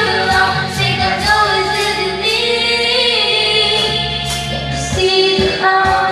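Several girls singing together over a karaoke backing track with a steady beat.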